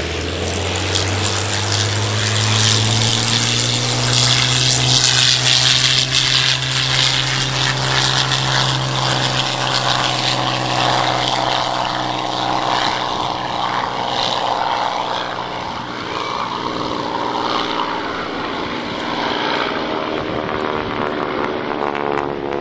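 Supermarine Spitfire's V12 piston engine running with its propeller turning: a steady, deep engine note that grows louder over the first few seconds, then the low note fades after about ten seconds while the propeller and exhaust noise carries on.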